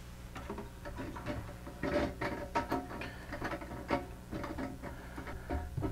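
Plastic parts of a new toilet fill valve clicking and knocking irregularly as the valve, its washer and plastic nut are handled and fitted, over a steady low hum.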